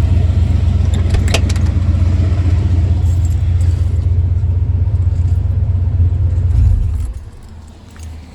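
1994 Ford F-150's engine idling with a loud, steady low rumble while running on its new alternator alone with the battery's positive cable disconnected, the sign of a good alternator. A sharp click about a second in; the engine shuts off about seven seconds in.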